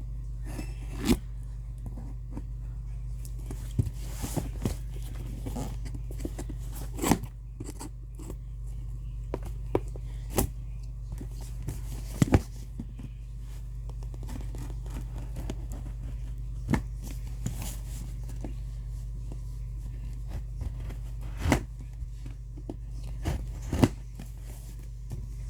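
Handling noises of a package being opened: scattered clicks, knocks, scrapes and tearing, over a steady low hum.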